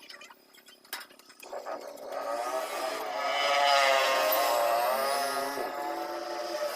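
A motorcycle engine revving, its pitch rising and falling over several seconds after a quieter start.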